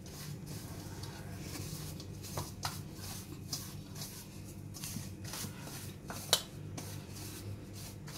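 Fingers mixing dry semolina and spice powder in a stainless-steel bowl: repeated gritty scraping strokes of grains against the steel, with one sharp click a little past six seconds in.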